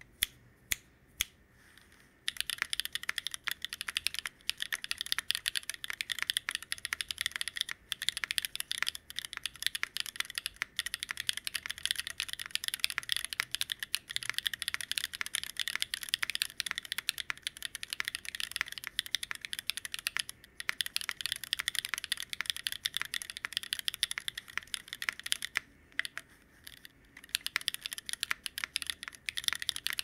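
Typing on a CherryB NEO87 mechanical keyboard with stock pre-lubed Owlab Neon switches, lubed TX stabilizers, no case foam and JTK keycaps: a few single clacks, then from about two seconds in a fast, continuous run of clacks, broken by a short pause near the end.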